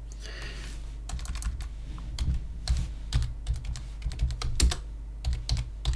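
Typing on a computer keyboard: a run of irregular key clicks, including arrow and backspace presses.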